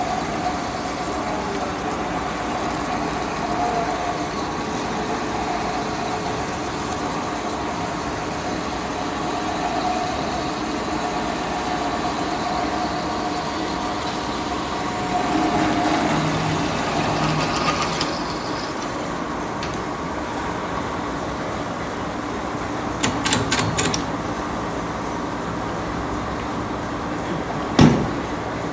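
Portable line boring machine running steadily with a humming motor drive. A quick cluster of sharp clicks comes about two-thirds of the way through, and a single loud knock comes near the end.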